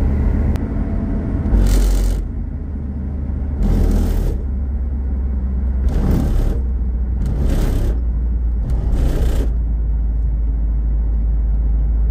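A 1971 Dodge Challenger convertible's low, steady road and engine rumble while cruising, with wind noise. Five short whooshes, each about half a second long, come every second and a half to two seconds over the first nine seconds.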